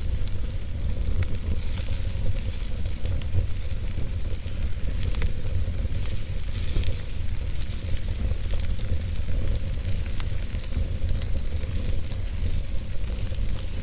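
Wood fire burning in a fireplace, hissing and crackling with many small scattered pops over a steady low rumble.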